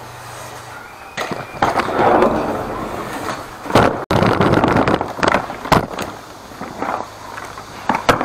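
Casters of a Ridgid wet/dry shop vacuum rolling and rattling over hard floor and paving as it is pulled along, with several sharp knocks and clunks.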